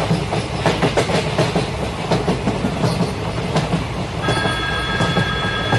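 Model train running on its track layout: a steady low rumble with irregular clicking. About four seconds in, a steady high tone starts and holds.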